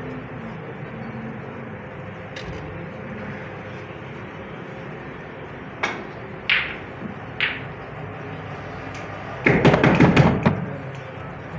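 Snooker balls clicking: a sharp click as the cue strikes the cue ball, then two short ringing clacks of ball on ball. These come over a steady room hum. Near the end comes a louder second-long burst of close rustling and knocks.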